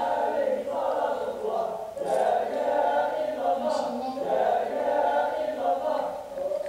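Singing voices with long held notes, a slow chant-like melody.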